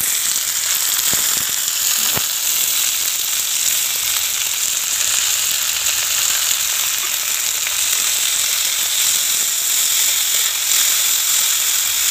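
Thin slices of jackfruit seed frying in hot mustard oil in a wok: a steady sizzle, with a few sharp clicks about one to two seconds in.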